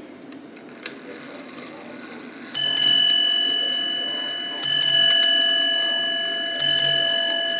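Ship's bell clock, converted from an American 8-day time and strike movement, with its hammers striking the bell. After a light mechanism click about a second in come three pairs of quick double strikes, each about two seconds apart and each ringing on and slowly fading. These are the first pairs of a seven-bell strike.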